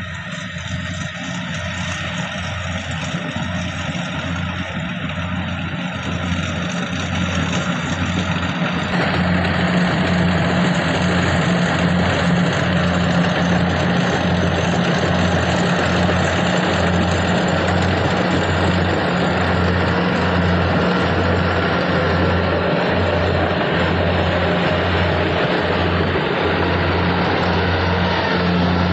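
Kubota DC104 combine harvester's diesel engine running with a steady hum, growing louder over the first several seconds and then holding steady.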